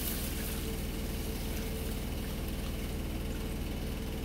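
Steady low hum of a running motor or appliance. Water is briefly poured from a plastic measuring cup into a plastic container near the start.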